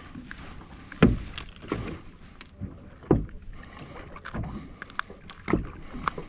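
Water slapping against the hull of a drifting boat in irregular low thumps, about five in six seconds, with small clicks in between.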